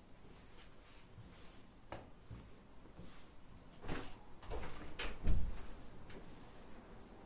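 A few scattered knocks and bumps of kitchen handling, the loudest a deep thump a little after five seconds in.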